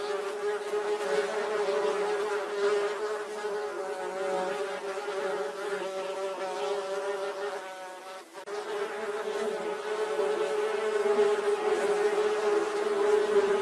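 Bee buzzing: a steady droning buzz that wavers slightly in pitch, fading briefly and cutting back in about eight seconds in.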